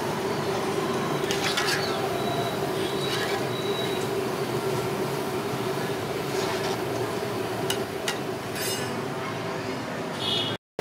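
Onion pakoda deep-frying in a large iron kadai: hot oil sizzling and bubbling steadily over a constant hum, with occasional scrapes and clinks of the metal skimmer against the pan. The sound cuts out for a moment near the end.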